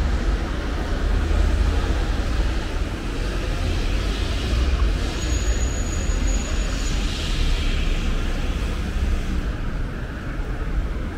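City street traffic with a steady low rumble. About four seconds in a passing vehicle swells up as a hiss of tyres for a few seconds, with a brief thin high tone in the middle of it.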